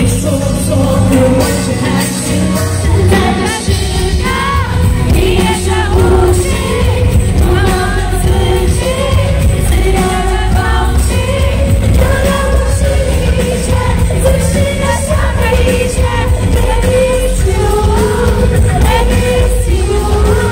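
Live pop song: a woman singing a melody over a live band of drums, bass, electric guitar and keyboard, heard from the audience in a large hall.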